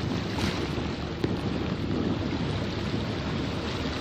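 Steady wind noise buffeting the microphone, with a low rumbling wash and no clear single event.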